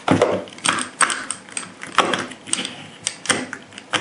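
Brass 300 Winchester Magnum rifle cartridges clinking and knocking in their cartridge tray as it is handled and set down, an irregular run of sharp clicks with a heavier knock at the start.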